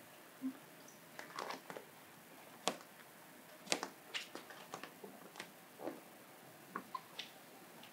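Hands working wet, soapy clear paint protection film over a car's hood and front bumper: scattered soft clicks, squishes and a few short squeaks as the slick film is pressed down, lifted and pulled.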